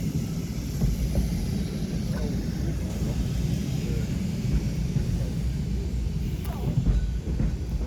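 Blackpool English Electric boat car tram running along the track: a steady low rumble of the wheels on the rails and the traction motors heard from aboard the open car.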